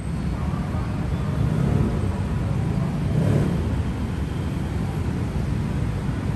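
Steady low rumble of city traffic, swelling briefly about three seconds in.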